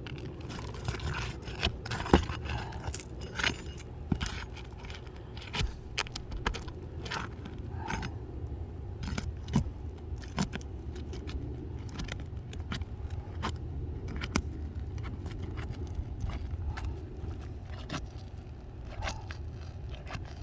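Asphalt shingles being pried apart and their nails pulled out: irregular metallic clinks, scrapes and crackles with no steady rhythm. The shingles are stuck together by mat transfer, so they tear as they come apart.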